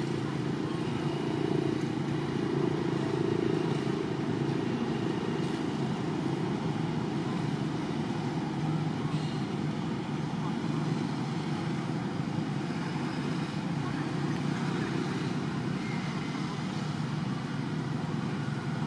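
Steady low outdoor background rumble, even throughout, with no distinct events.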